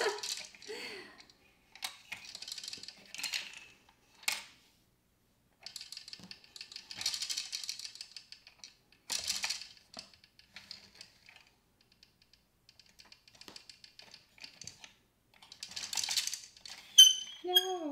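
Plastic gears of a Downspin game unit clicking and rattling in bursts as they are twisted with the game key, with plastic tokens clattering through them.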